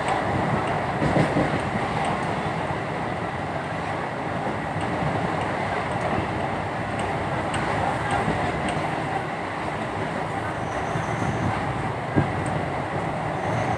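Train running along the track: a steady noise with faint scattered clicks.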